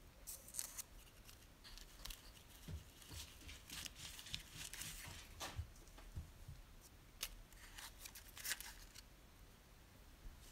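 Stack of paper die-cut labels being flicked through and shuffled in a small cardboard box: faint irregular paper rustles and clicks, with a few soft low taps in the middle.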